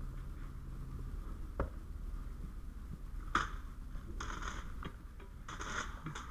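Knocks, scrapes and rattles of a firefighter's gear and long hand tool as he walks, with one sharp knock about halfway through, over a low steady hum.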